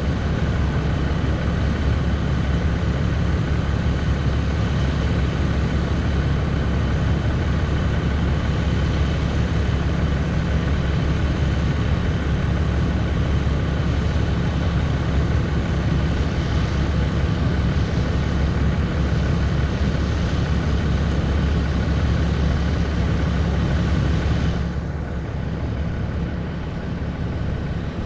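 Ram pickup's Cummins inline-six turbo diesel idling steadily with the truck stopped. A few seconds before the end the higher hiss drops away and the sound gets a little quieter.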